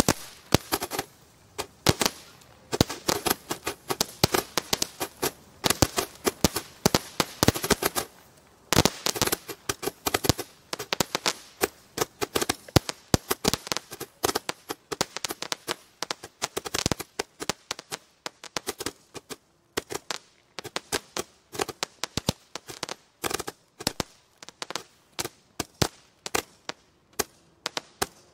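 140-shot gatling gun firework firing a rapid string of sharp reports, several a second. There is a brief lull about eight seconds in, and the shots grow sparser toward the end before they stop.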